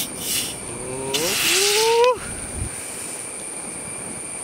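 A 250 ml plastic Coca-Cola bottle being twisted open: a couple of sharp clicks as the cap's seal gives, then a hiss of escaping carbonation with a rising whistle. The hiss lasts about a second and stops abruptly as the cap comes free.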